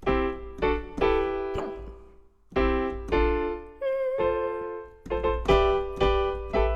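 Piano music playing back: chords struck about once a second, each ringing and fading before the next.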